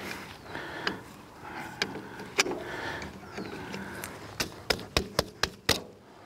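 Pliers working a cotter pin out of the clevis at the end of a log splitter's hydraulic ram: scattered sharp metal clicks over light scraping, with a quick run of about six clicks near the end.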